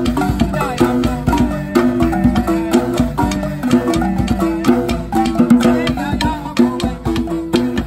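Three gourd-resonated wooden xylophones played together in a fast, continuous pattern of repeated struck notes, with a djembe drum beneath them.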